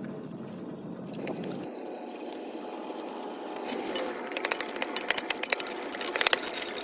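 Steady rush of water flowing through a cleared drain. In the last three seconds there is a quick, irregular run of sharp clicks and knocks, like sticks and debris being scraped and struck.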